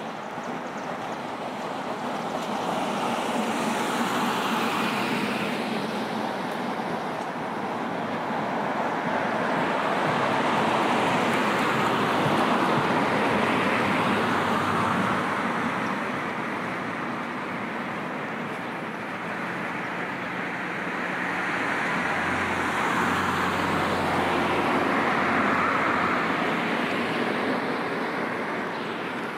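Road traffic: cars passing one after another, their tyre and engine noise swelling and fading three times.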